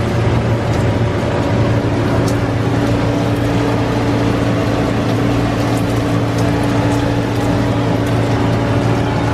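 Bacon frying in a pan on a camp stove: a steady sizzle with occasional small pops over a low steady hum.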